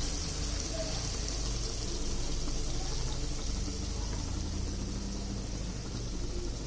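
Chicken frying in hot oil: a steady sizzling hiss.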